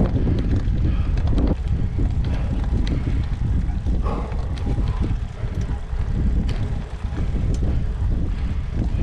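Wind rumbling on the microphone of a camera riding along on a road bicycle, with a few light clicks from the bike.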